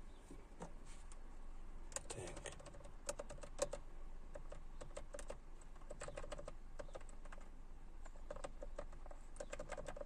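Plastic preset buttons on a Skoda Blues car radio clicking in quick runs of presses as the anti-theft security code is keyed in, each press stepping one digit of the code up.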